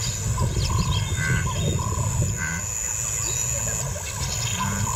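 Outdoor bush ambience: short bird calls repeating every half-second or so over a continuous low rumble, with a steady high insect whine.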